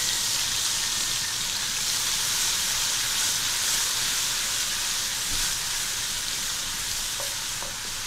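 Chopped garlic sizzling in hot oil in an aluminium pot as it is stirred: a steady hiss that eases slightly near the end. The garlic is being fried only until it smells fragrant, not browned.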